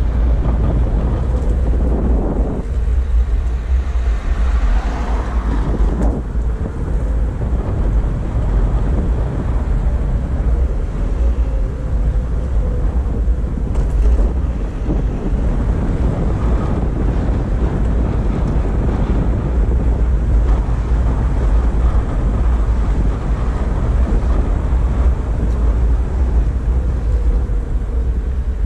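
Wind buffeting the microphone over the rumble of an all-terrain electric skateboard rolling at speed, with a faint steady whine.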